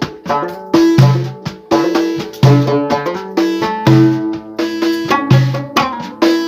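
Instrumental music: a plucked string instrument playing quick notes over a drum beat, with no singing.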